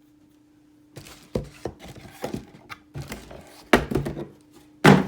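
Items from a car amplifier box being handled and set down: a run of light knocks and clicks, with louder thunks about four seconds in and near the end.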